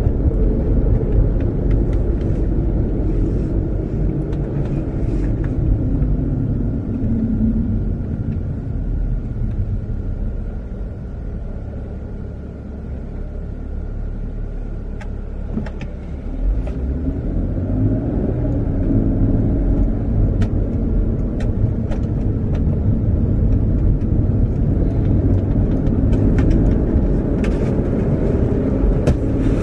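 BMW car driving, with engine and road noise heard from inside the cabin. It eases off and quietens near the middle, then the engine pitch rises as the car accelerates again.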